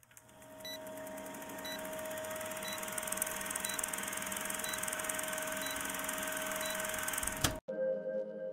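Old film projector sound effect for a countdown leader: a steady whirring hiss and hum with a short tick about once a second. It cuts off with a sharp click near the end.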